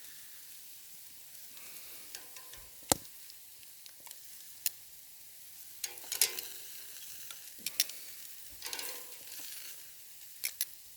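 Food sizzling on a grill over campfire coals: a steady hiss broken by sharp crackles and pops every second or two.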